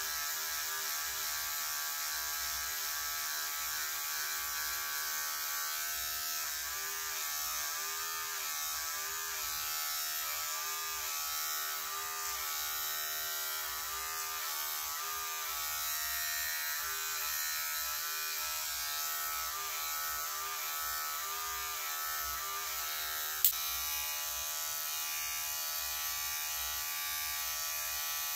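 Electric hair clippers running steadily, a motor hum whose pitch wavers again and again as the blades pass through hair on the side of the head. One sharp click comes a few seconds before the end.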